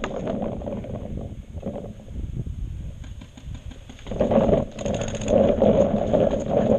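Rumbling handling and movement noise on a barrel-mounted action camera as the player moves between bunkers. About five seconds in comes a quick burst of paintball marker shots, a rapid string of sharp cracks lasting about half a second.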